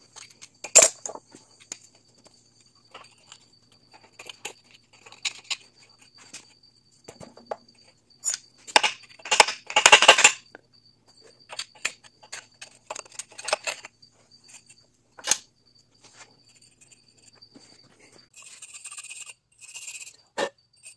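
Hand cleaning of a Corvair air-cooled flat-six's cylinder head. A rag wipes and scrapes among the pushrod tubes, with scattered clicks and knocks of tools on the metal and a burst of heavy scraping about halfway through. Near the end come brisk repeated strokes of a small hand brush scrubbing the head's edge.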